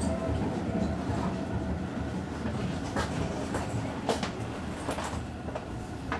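Seibu 30000 series electric train running, heard from inside the front car as it pulls away past the end of a station platform. There is a steady low rumble of wheels and running gear, with a few sharp clicks about a second apart in the second half.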